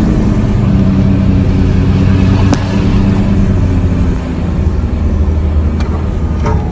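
Off-road 4x4 engine running steadily at low speed on a dirt trail, a loud even drone, with one sharp knock about two and a half seconds in.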